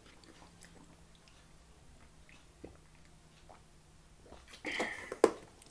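A person drinking from a carton: faint swallowing, then a loud breath out and a sharp click near the end as the drinking stops.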